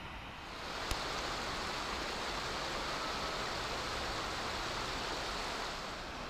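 Steady rush of flowing water from a river or waterfall, with a single sharp click about a second in.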